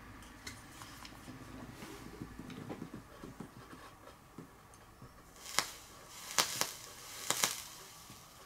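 Faint handling rustles, then a handful of sharp pops and a short crackle from about five seconds in: e-liquid spitting on the freshly wicked, wet coil of a rebuildable dripper as it is fired with the deck open.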